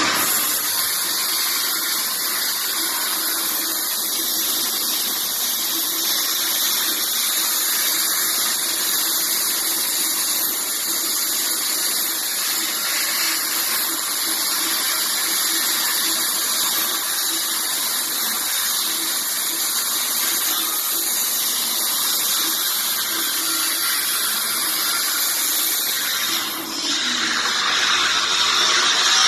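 Hypertherm plasma torch on a CNC cutting table cutting steel: a loud, steady hissing arc. It breaks off briefly near the end and starts again.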